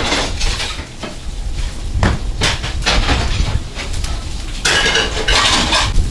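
Restaurant kitchen clatter: metal pans and dishes knocking several times, with a dense rush of noise about five seconds in.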